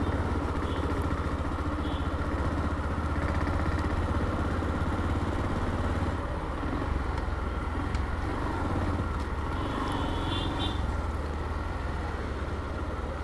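Motorcycle engine running steadily as the bike rides slowly along a busy street, heard from the rider's seat.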